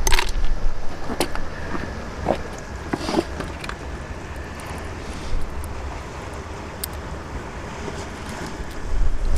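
Wind rumbling on the microphone, heaviest at the start and near the end, with a few scattered sharp clicks and taps.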